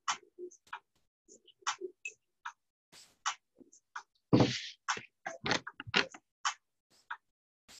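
Irregular light clicks and taps, several a second, with one louder thump about four and a half seconds in.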